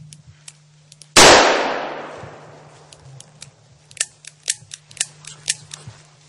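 A single hunting gunshot about a second in, a loud crack with a long echo fading over about a second through the forest. It is followed near the end by a quick series of light, sharp clicks and crackles.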